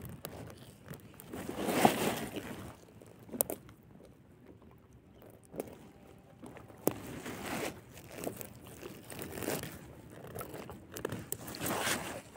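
Rustling and crinkling of a plastic sheet and a nylon gill net as hands work a rohu fish free of the mesh, coming in several swells with a few sharp clicks between.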